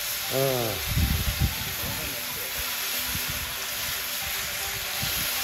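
Edamame sizzling in a steel frying pan over a wood fire: a steady frying hiss. A brief voice sounds under a second in, with a few low thumps just after.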